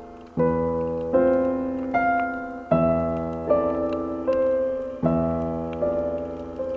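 Slow background piano music: a new chord about every two seconds with single notes between, each one struck and then fading away.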